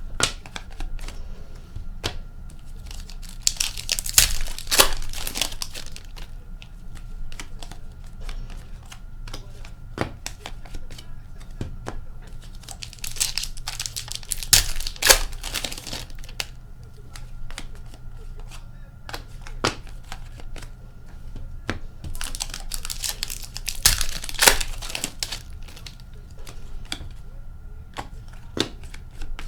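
Foil hockey card packs being torn open and crinkled by hand, three times at intervals of about nine seconds, with small clicks and rustles of cards being handled in between.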